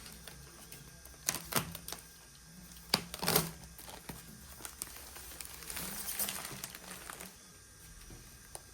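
Packaging being handled during an unboxing: crinkling and rustling, with a few sharp knocks, the loudest about a second and a half in and around three seconds in.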